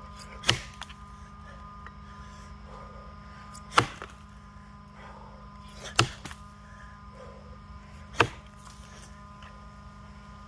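Axe chopping into a box elder log: four heavy strikes, about two seconds apart.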